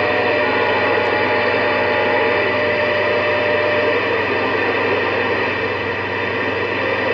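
CB radio receiver hissing with steady static on an idle channel, with a faint steady whistle of a distant signal through the first few seconds.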